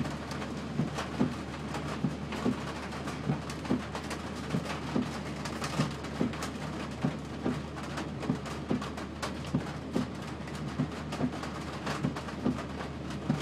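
Heavy rain hitting a vehicle during a downpour, with a steady low engine hum underneath and repeated dull thumps, one or two a second.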